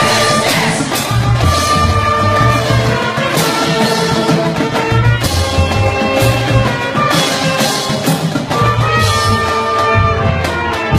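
Music: an instrumental track with held notes over a bass line and drum beats.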